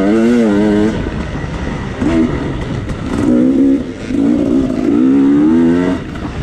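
Off-road dirt bike engine revving, its pitch rising and falling as the throttle is worked. It backs off briefly several times, about a second in, near two seconds, near four seconds and near six seconds, with a rough noise from the ride underneath.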